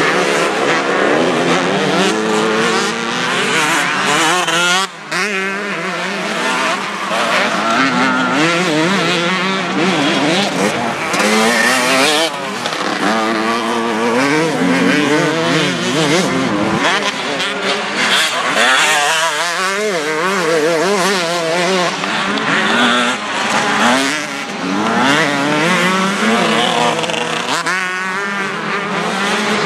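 Several motocross bikes racing, their engines revving up and down as they accelerate and shift through corners, overlapping one another, with a brief break about five seconds in.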